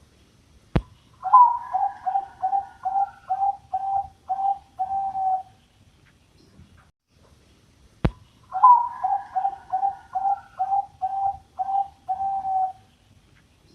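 A Bangkok dove cooing twice. Each phrase is a rising first note followed by about eight quick, even coos, and each lasts about four seconds. A sharp click comes just before each phrase.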